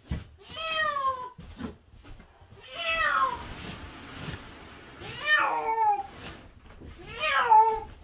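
A domestic cat meowing four times, about two seconds apart, each meow a drawn-out call that falls in pitch.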